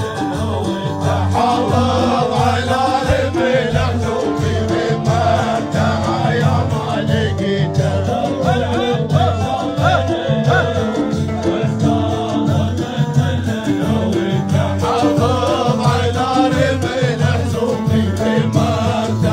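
Live Emirati folk music: a male lead singer sings into an amplified microphone, with other men's voices joining in, over a steady repeating low beat.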